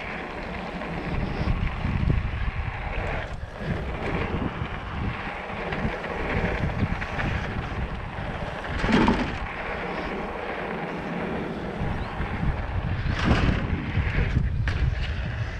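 Mountain bike descending a dirt flow trail: wind rushing over the microphone with tyre roll and rattle from the bike, and two louder bumps about nine and thirteen seconds in.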